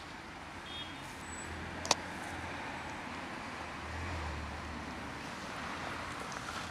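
Road traffic, with the low rumble of passing vehicles swelling twice, and a single sharp click just before two seconds in.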